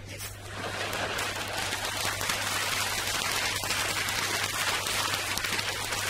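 Audience applause from a live recording, played back from a vinyl record, swelling in during the first second and then holding steady over a low hum.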